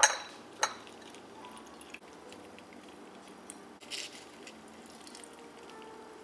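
Stainless steel muddler crushing mint leaves in a glass: two sharp clinks of metal on glass near the start, then faint squishing and grinding, with a short crunch about four seconds in.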